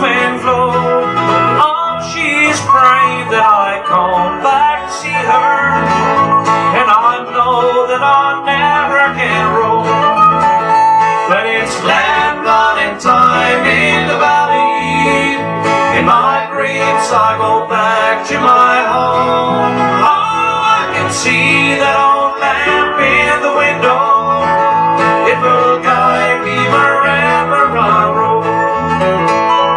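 Live country string band playing an instrumental break without singing: acoustic guitar strumming under picked mandolin and other plucked-string leads.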